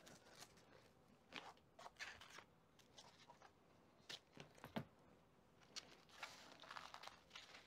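Faint, scattered clicks and rustles of kit parts and plastic and foam packaging being handled.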